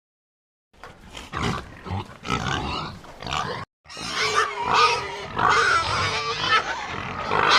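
Pig grunting in a run of short, rough calls, starting about a second in, with a brief break a little before the middle and denser, louder calls after it.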